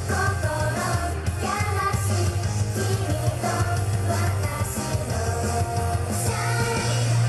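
Upbeat J-pop idol song with a rock band backing and a heavy, steady bass line, with the group's voices singing over it.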